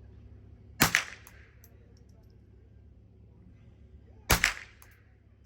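Two gunshots about three and a half seconds apart, each a sharp crack followed by a quick echo.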